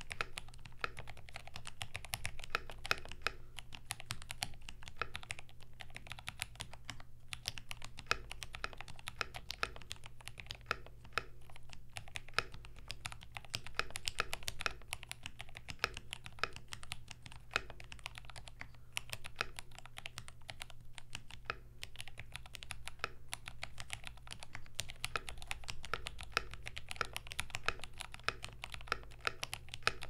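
Continuous typing on a Vortex Model M SSK mechanical keyboard with Gateron G Pro 2.0 Brown tactile switches on a brass plate with Poron foam: a dense, irregular run of key clicks and clacks, over a steady low hum.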